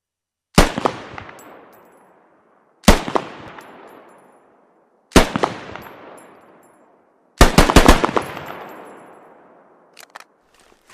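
SVD Dragunov 7.62×54mmR semi-automatic sniper rifle firing: three single shots about two and a quarter seconds apart, then a quick string of four or five shots, each with a long echoing tail. A few faint clicks near the end.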